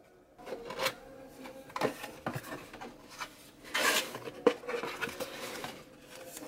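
Hands opening a cardboard box: flaps and a tuck tab scraping and clicking against the cardboard, with a few sharp taps. A louder paper rustle comes about four seconds in as the paper instruction booklet is slid out, followed by rubbing as it is handled.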